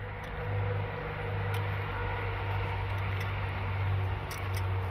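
A steady low hum under an even hiss, with a few faint clicks.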